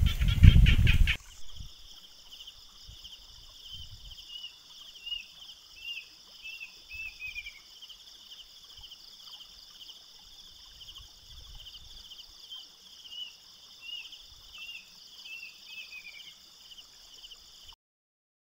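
Rural ambience: a brief loud low rumble at the very start, then a steady high-pitched insect buzz with a bird calling in two runs of short falling chirps.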